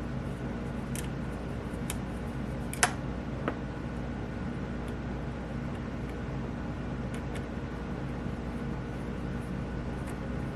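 Faint clicks and taps of screws being taken out of a small plastic housing, the sharpest about three seconds in, over a steady mechanical hum.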